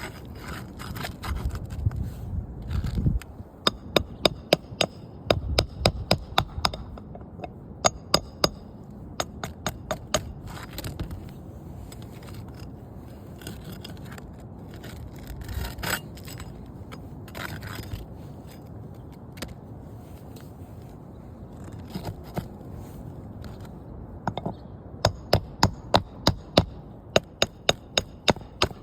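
Hand tools working on roof shingles to remove and replace a damaged one: runs of sharp hammer-like strikes with a slight ring, about three or four a second, with scraping and rustling between. The strikes come in two main runs, early on and again near the end.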